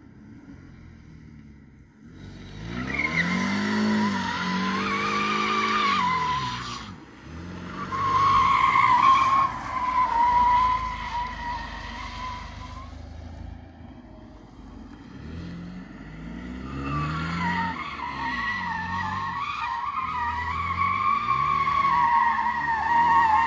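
BMW sedan drifting: tyres squealing long and wavering while the engine revs rise and fall, in three spells starting about two, eight and seventeen seconds in, with the engine quieter between them.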